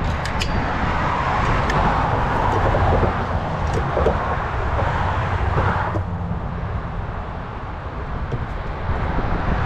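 A vehicle running with a steady low engine rumble and some rattling clicks; the higher noise drops away about six seconds in.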